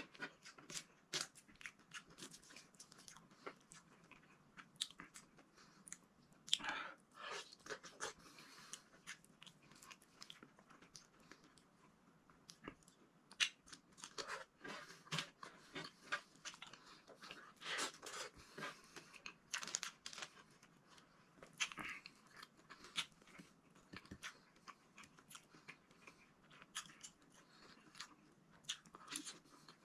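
A person chewing and biting food with the mouth close to the microphone, eating okra and eggplant: irregular, moist clicks and crunches throughout, without words.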